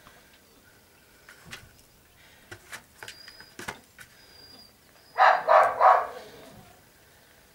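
A young dog gives three short, high-pitched yelping barks in quick succession about five seconds in, after a few light clicks and taps.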